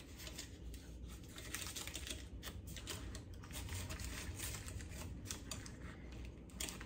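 Quick irregular light clicks and taps of a small metal springform cake tin being handled and worked open, with faint rustling of the paper under it.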